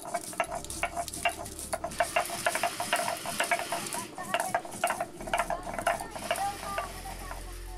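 Whole garam masala spices being crushed on a flat stone grinding slab (sil) with a stone roller (nora): a quick, irregular run of sharp clicks and crunches with scraping of stone on stone between them.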